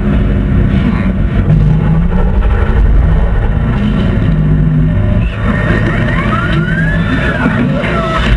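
Movie soundtrack of a vehicle chase played loud through speakers: heavy engine rumble and vehicle noise, with several high sliding squeals from about six seconds in.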